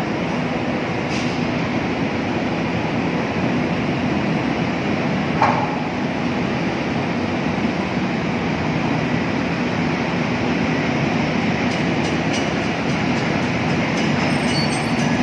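Diesel terminal tractor towing a loaded semi-trailer across a ship's steel deck, a steady rumble with a constant low hum, growing a little louder as it comes close near the end. One short metallic clank about five and a half seconds in.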